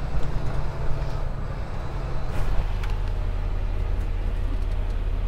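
Freightliner semi-truck's diesel engine running steadily, heard from inside the cab as a low rumble, with a few light clicks.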